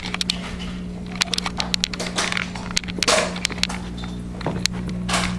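Handling noise of a handheld camera being fumbled and moved about: a run of short clicks, knocks and rustles, the loudest about three seconds in and again near the end, over a steady low hum.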